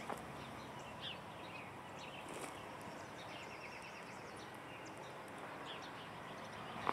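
Faint outdoor ambience with a few birds chirping, including a quick run of chirps about three seconds in.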